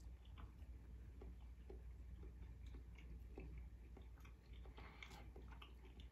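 Faint chewing of a spoonful of spotted dick, a soft raisin-studded steamed pudding: scattered small wet mouth clicks and smacks over a low room hum, getting busier near the end.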